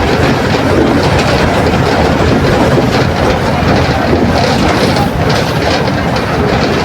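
Mercedes-Benz OF 1721 city bus running under way: loud, steady engine and running noise.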